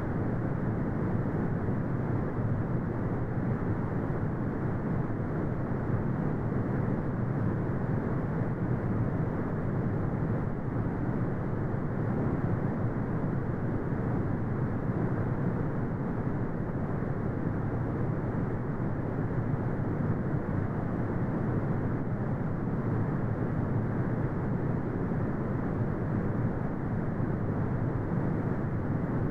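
Steady brown noise: an even, deep rumbling hiss with its energy in the low range and nothing above the upper midrange, unchanging throughout.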